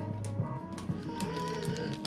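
Background music with held notes, with scattered light clicks and taps over it.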